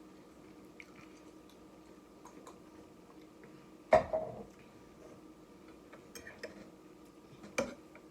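Eating at a table: a utensil knocks sharply against a dish twice, once about halfway through and again near the end, with a few faint small clicks between them over a steady low hum.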